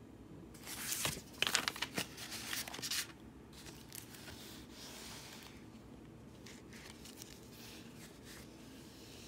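Rolled diamond painting canvas and its plastic protective film crinkling and rustling as they are handled and unrolled. The rustling is loudest in a burst of crackles over the first three seconds, then dies to faint, scattered rustles.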